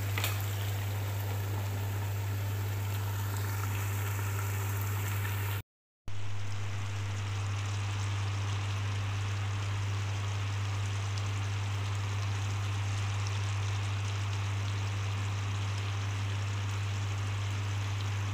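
Chicken stew simmering in a pan: a steady bubbling hiss of the sauce over a constant low hum. The sound drops out briefly about six seconds in.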